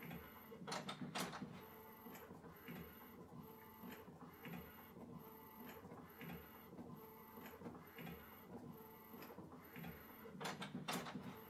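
Epson EcoTank ET-8550 inkjet photo printer printing, its printhead carriage shuttling back and forth in a quiet, even rhythm of passes. Pairs of sharper clicks come about a second in and again near the end.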